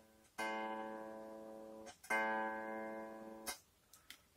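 Squier Stratocaster electric guitar, a fretted string plucked twice on the same note, each time ringing and fading for about a second and a half. The notes are test plucks to check for fret buzz after a bridge saddle has been raised slightly.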